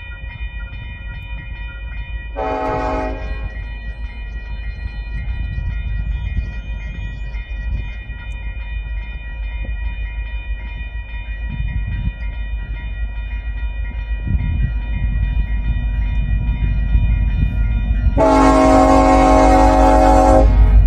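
Union Pacific diesel freight locomotives sounding their air horn as the train approaches: a short blast about two and a half seconds in, then a long, louder blast near the end. Under it, the low rumble of the engines and wheels grows steadily louder as the train nears.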